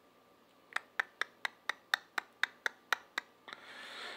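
A quick, even run of about eleven sharp taps, roughly four a second, followed near the end by a short rising hiss.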